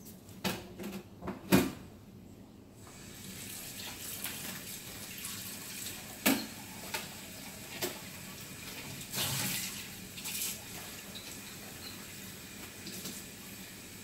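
Kitchen tap turned on about three seconds in and left running steadily into the sink. Scattered sharp clicks and knocks sound over it, the loudest one about a second and a half in, before the water starts.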